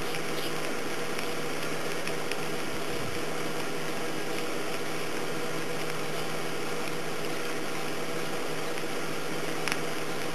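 Oxyhydrogen (HHO) torch flame hissing steadily while held on rock and glass to melt them, with a steady low hum underneath.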